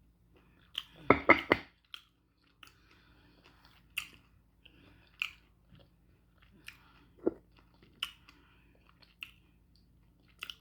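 Close-miked mouth chewing and wet smacking of a person eating slow-cooked beef bone marrow with onions and garlic: a quick run of loud smacks about a second in, then single smacks about once a second.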